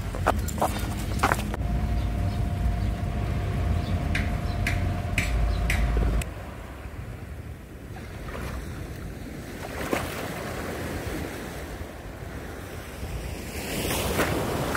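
Steady low hum with a thin steady tone and a few clicks, then an abrupt change about six seconds in to the wash of beach surf and wind buffeting the microphone, with the surf swelling near the end.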